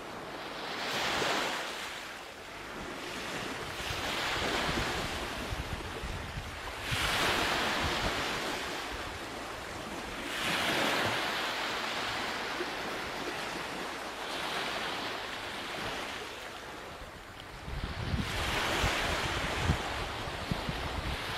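Ocean waves surging and receding in slow swells a few seconds apart, with a deeper rumble near the end.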